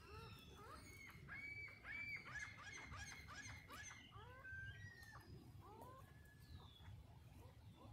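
A flock of birds calling faintly: a rapid run of many short overlapping calls, each rising and then falling, then fewer scattered calls.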